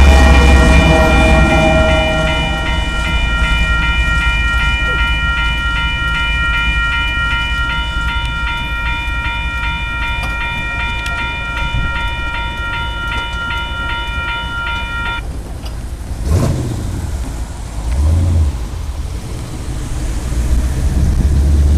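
A diesel freight locomotive's air horn blows one long steady chord for about fifteen seconds, then cuts off suddenly. Under it runs the low rumble of locomotives. It is loud at first from a GE Evolution-series unit passing close and fading, then builds again near the end as another Union Pacific locomotive approaches.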